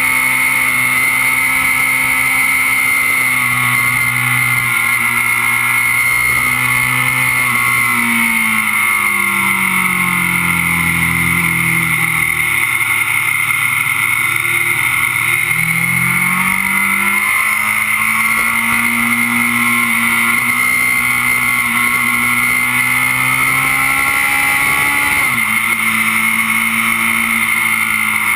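Kawasaki Z750's inline-four engine at track speed, heard close beside the engine over steady wind and road noise. The revs fall over a few seconds about a third of the way in as the bike slows for a corner, then climb again as it drives out, with a sudden drop in pitch near the end from an upshift.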